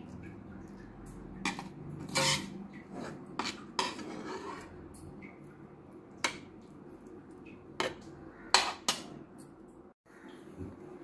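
A spoon clinking and scraping against a bowl as thick gongura chutney is spooned in: scattered sharp knocks about every second, the loudest near the end.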